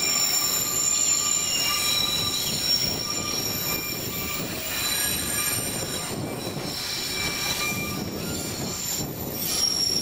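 Narrow-gauge train's steel wheels squealing on the rails as the cars round a curve: several steady high-pitched tones over the rumble of the cars rolling along the track.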